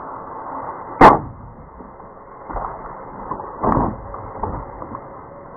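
A plastic gallon milk jug hits asphalt with one loud, dull thud about a second in. A few fainter thuds follow as it tips over and spills.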